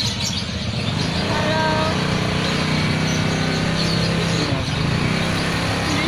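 A motor vehicle engine running close by, a steady low drone, with a short higher-pitched tone about a second and a half in.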